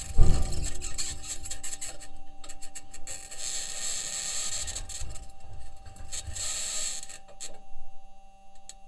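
Perseverance rover driving on Mars, its aluminium wheels and chassis giving a harsh scraping, rasping noise that comes and goes in waves and dies down near the end. A steady thin tone runs underneath throughout.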